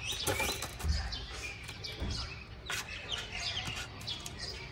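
Small birds chirping repeatedly, short quick falling notes, with a kitten's claws scrabbling and bumping on a plastic basin, giving dull knocks about one and two seconds in.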